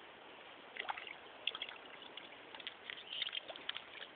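Hooked fish thrashing on a line at the water's surface, a run of quick small splashes that begins about a second in and grows busier near the end.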